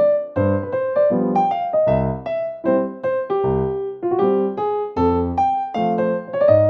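Background music: an upbeat electric piano playing a bouncy melody over a bass line, with no speech.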